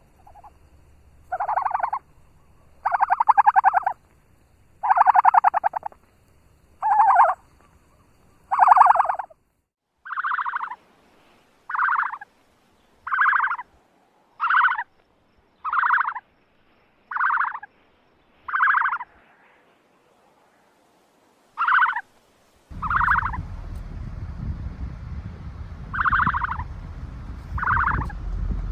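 Farm bird calling over and over: a series of short pitched calls, each under a second, repeated every one to two seconds. Near the end a steady low rumble of background noise comes in under the calls.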